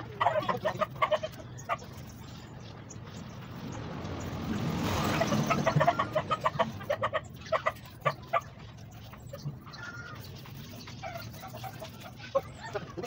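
Chickens clucking in quick runs of short calls, several times over. Around the middle, a swell of noise builds for a couple of seconds and then fades.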